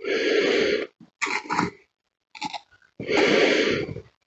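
A person's breathy, unvoiced huffs: two long ones about three seconds apart, with shorter ones between them.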